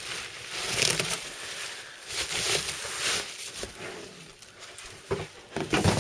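Packaging being handled during unboxing: rustling, crinkling and scraping in several irregular bursts.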